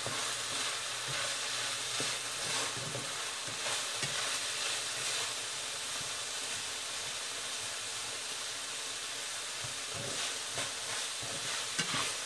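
Ground-beef siopao filling with onion and garlic sizzling in a frying pan, with a steady hiss, while a utensil stirs it, making scattered light scrapes and taps against the pan.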